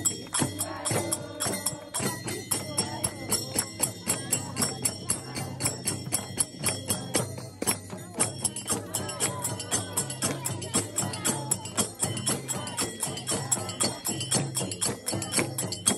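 Traditional music with a quick, even beat of drum strokes and jingling, tambourine-like percussion, with steady ringing tones over it.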